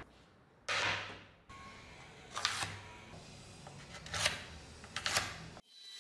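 Wooden boards and a steel sword blade being set down and shifted on a steel-topped workbench: four short knocks and scrapes, the loudest about a second in, the rest about every second and a half, cut off suddenly near the end.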